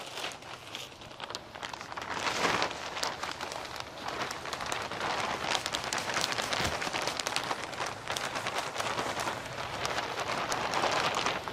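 Potting soil pouring out of a plastic bag into a plastic bucket: a dense, crackling patter of falling soil, lighter at first and building about two seconds in, stopping near the end.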